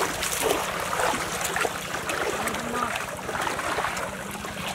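Shallow muddy water sloshing and splashing as several people wade through it and drag a fishing net, with many small irregular splashes.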